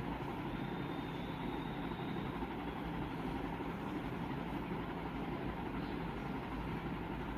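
Steady low rumble and hum of a running machine, with no distinct knocks or other events.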